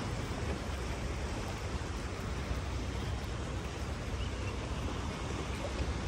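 Steady wind rumbling on the microphone with sea surf noise behind it, with no distinct events.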